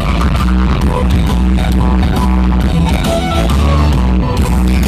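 Loud dance music played over a nightclub sound system, with heavy bass and a steady beat.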